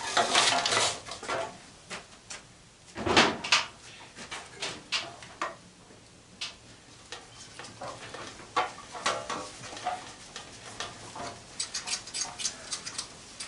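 Metal parts and hand tools clinking and clattering as an old fan is taken apart, with a louder rattle at the start and again about three seconds in, then scattered light clicks.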